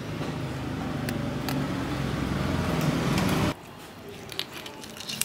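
A motor vehicle's engine running, growing louder and then cutting off suddenly about three and a half seconds in. After that come faint wet clicks and squelches from the raw quail being handled.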